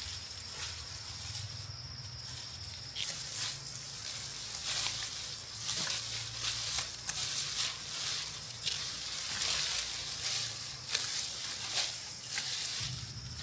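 Dry rice plants rustling and crackling in irregular bursts as stalks and panicles are handled and pushed through. A steady high-pitched tone stops about three seconds in.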